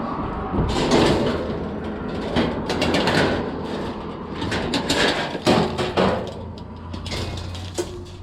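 Repeated clanks and knocks of scrap metal being handled and loaded into a van, over the steady low hum of an idling engine.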